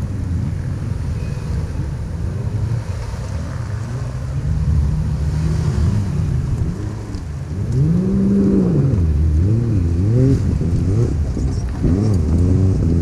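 Toyota 4Runner's V6 engine revving up and down repeatedly as the SUV crawls over dirt mounds, with the swells louder in the second half.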